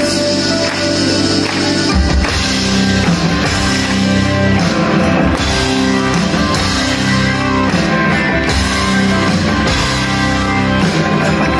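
Live rock band playing, guitars over a drum kit; the bass and drums come in fully about two seconds in.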